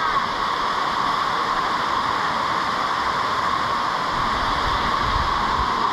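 Laurel Falls waterfall rushing in a steady, unbroken roar of falling water.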